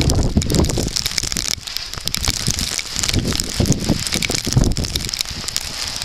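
Gusting wind buffeting the microphone, with an uneven low rumble and many small crackles close to it.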